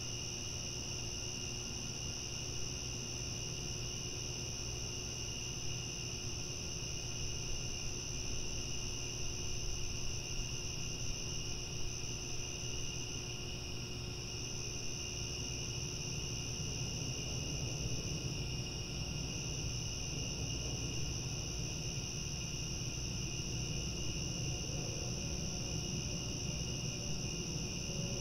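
Crickets chirping at night in a dense chorus, a steady high-pitched trill that never breaks, over a low background rumble.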